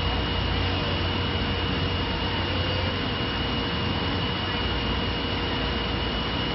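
Three-spindle CNC wood lathe running, turning wooden stair balusters: a steady mechanical noise with a constant high-pitched whine.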